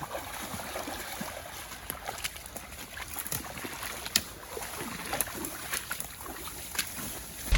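Outdoor ambience: a steady high hiss with faint scattered clicks and rustles.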